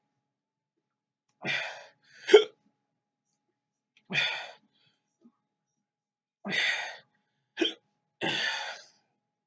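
A man hiccuping and huffing out short breaths, six short sounds a second or two apart, with two sharp hiccups the loudest. These are his reaction to the burn of ghost pepper hot sauce in his mouth.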